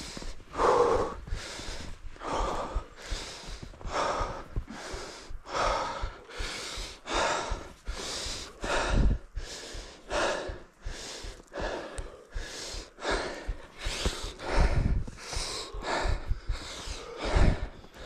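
A person breathing hard and fast through the mouth, an even run of loud in-and-out breaths at about three every two seconds, with a few dull low thumps.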